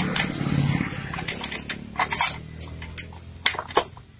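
Irregular light metallic clinks and taps as the rear wheel axle and its fittings are worked free of a Yamaha Vixion motorcycle's swing arm.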